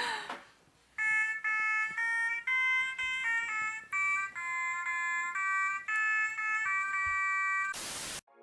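Mini Otamatone playing a tune of short, steady, high-pitched electronic notes that step up and down. A brief burst of hiss comes near the end.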